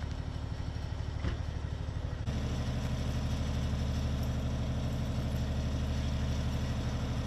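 An engine idling steadily with a low, even hum, growing louder and fuller about two seconds in.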